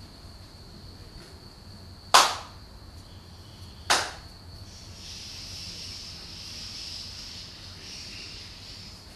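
Two sharp hand claps about two seconds apart, each ringing briefly in the wooden hall: a Shinto priest's ritual clapping (kashiwade) before the altar.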